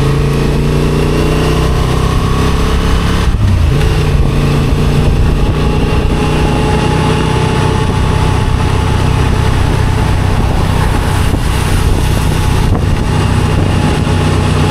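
Honda XL750 Transalp's parallel-twin engine running while riding, a steady engine note that drops out briefly about three and a half seconds in and then climbs in pitch again.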